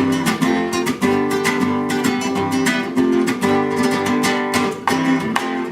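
Acoustic guitar played with fast, rhythmic strummed chords, several strokes a second.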